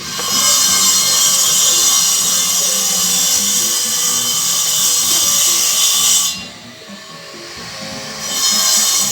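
A workshop tool gives a high-pitched hissing whine for about six seconds, stops, and starts again near the end. Background music plays under it.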